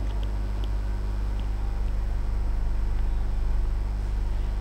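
A steady low background hum, with a few faint ticks.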